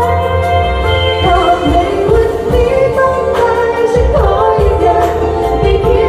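Women singing a Thai pop song live into microphones through a stage PA, over backing music with a steady bass line and a drum beat.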